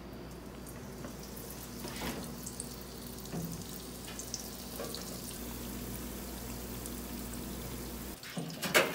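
Breaded chicken croquettes sizzling and bubbling in deep-fryer oil at about 300 degrees, over a steady low hum. A sharp, loud knock comes near the end.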